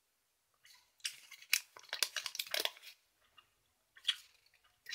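Paper wrapper of a Refreshers sweet crinkling as it is handled: a dense run of crackles in the middle and a short burst of crackles near the end.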